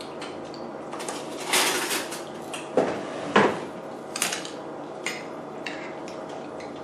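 Eating utensils clinking and knocking against a bowl of ramen: a string of short, separate knocks, about half a dozen.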